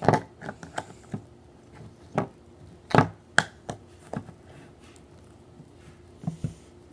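Scattered sharp clicks and taps from hands handling things close to the microphone, about a dozen at uneven spacing, the loudest about three seconds in and a quick pair near the end.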